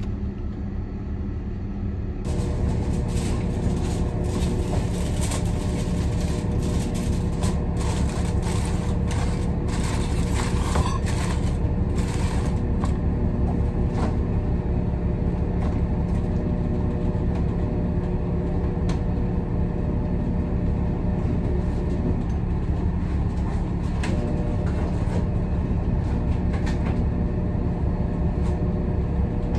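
Loud, steady, low drone of a ship's engines and ventilation inside the galley, with a few steady hum tones in it. Through the first half, quick rustling and clicking handling noises sit on top of it.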